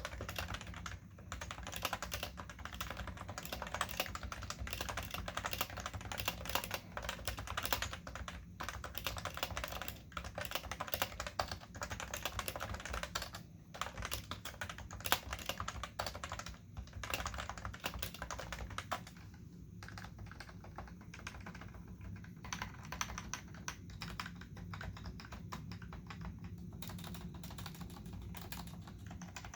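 Cooler Master Novatouch keyboard with Topre switches and OEM-profile keycaps being typed on in a fast, continuous run of key clicks, with a few short pauses. The typing gets lighter about two-thirds of the way through.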